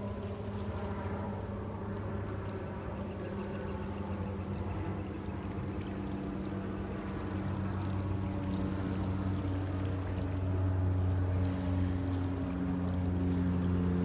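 A boat's engine droning steadily on the water, its pitch shifting a little and the sound growing louder over the second half.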